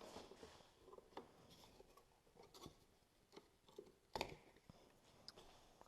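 Faint, scattered clicks and light taps of hands working on plastic trim parts and tools, with one sharper click about four seconds in.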